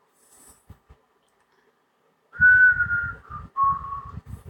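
A person whistling two held notes a little past halfway through, the second one lower than the first after a short break.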